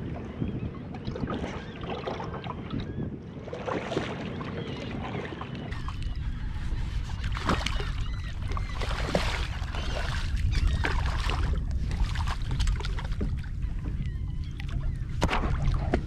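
Splashing as a hooked redfish thrashes at the surface beside a kayak, over wind noise on the microphone that gets heavier from about six seconds in; faint bird calls early on.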